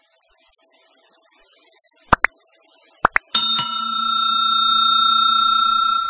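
Subscribe-button animation sound effect: two pairs of quick mouse clicks about a second apart, then a bell struck once, its ringing tone holding steady until it cuts off suddenly.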